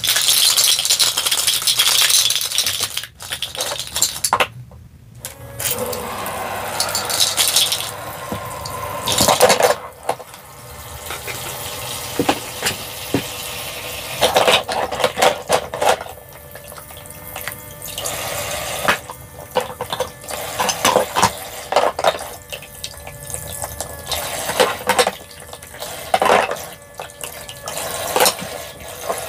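Small stream of water from a toy kitchen sink's faucet splashing over plastic toy fruit, with plastic pieces clicking and knocking against each other and the basin. It opens with a loud rush for a few seconds, then a brief pause.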